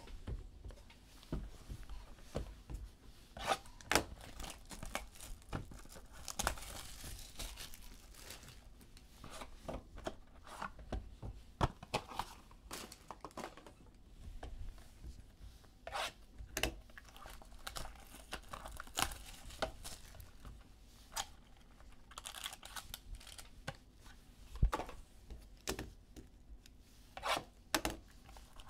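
Plastic shrink-wrap and card-pack wrappers being torn open and crinkled by hand. There are many sharp crackles and clicks, and two longer tearing stretches, about six seconds in and about twenty-two seconds in.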